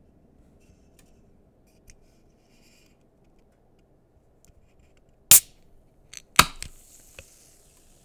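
Carbonated drink can's pull tab opened: a sharp click, then about a second later a second crack that releases a fizzing hiss of escaping gas, with a couple of small clicks as the tab settles.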